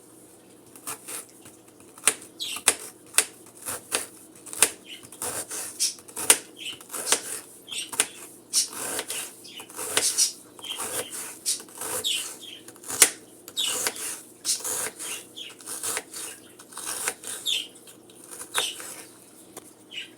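Knife chopping an onion on a cutting board: quick, irregular strokes, several a second, some much louder than others, over a faint steady hum.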